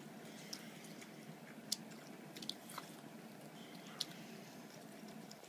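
Faint, scattered wet clicks and smacks from a dozing toddler's mouth, over quiet room tone.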